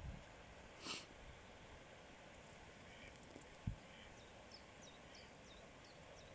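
Quiet countryside ambience: a faint steady hiss with a brief rustle about a second in and a soft thump midway. Near the end, a small bird gives a quick run of short, high, falling chirps.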